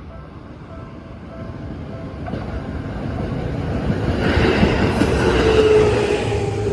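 Seibu New 101 series electric train approaching and running by, growing steadily louder, with wheels clattering over rail joints; it is loudest over the last few seconds.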